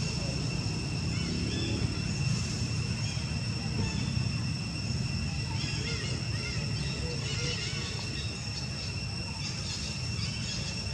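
Outdoor ambience: a steady high insect drone with a low rumble underneath, and faint short chirps scattered through it.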